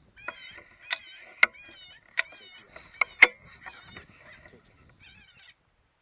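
Electronic predator call playing repeated wavering, high-pitched cries, broken by several sharp loud clicks in the first half; the calling stops about five and a half seconds in.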